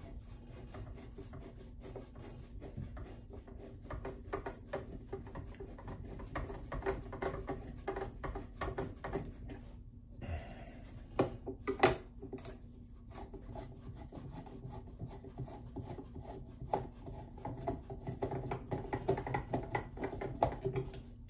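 Screwdriver backing screws out of a plastic sewing machine case: small scratchy scraping and clicking as the bit turns, with a few sharper clicks near the middle.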